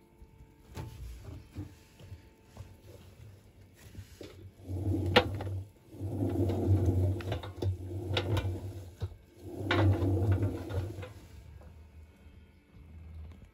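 Electrolux EWC1050 washing machine's drum turning the wet towels in about four short runs of a second or so each, a low motor hum with a tumbling swish, set off by a few sharp clicks and knocks.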